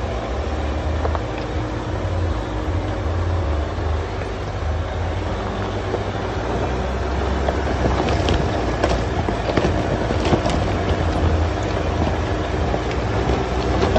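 Jeep crawling along a rocky dirt trail: a steady low engine rumble with tyres crunching over loose stones, and a run of crunches and clicks in the second half.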